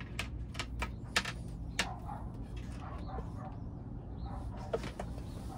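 Blue 1/4-inch plastic tubing being handled and pushed into a push-fit fitting: a few scattered light clicks and rustles over a steady low hum.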